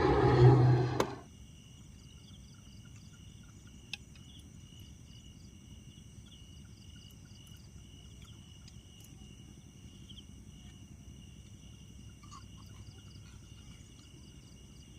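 Night insects chirping in steady high pulsing trills. A louder low hum cuts off suddenly about a second in.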